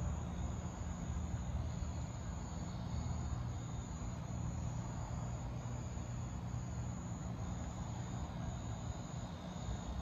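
A boat motor running steadily at low speed, an even low hum, with a steady high insect buzz above it.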